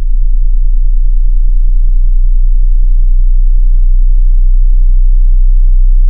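Very low sine-wave test tone from a slow frequency sweep, set in abruptly: a loud, deep, steady tone in the low 20s of hertz, climbing slowly to about 26 Hz. The sweep is played to shake loose rattles and buzzes in vents, light fixtures and furniture.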